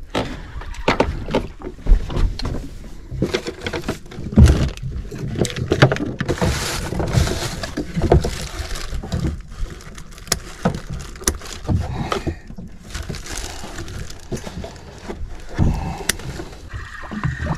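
Handling noise on a boat deck: a plastic bait bag rustling and crinkling, with irregular knocks and clicks of hands and gear, over water lapping at the hull.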